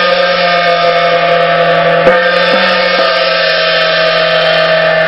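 Large hanging gong struck repeatedly with a soft felt mallet, keeping up a loud, sustained wash of many ringing tones. Fresh strokes land about two seconds in and twice more within the next second.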